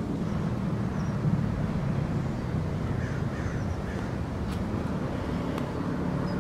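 Outdoor background: a steady low rumble, with a few short bird calls about three seconds in.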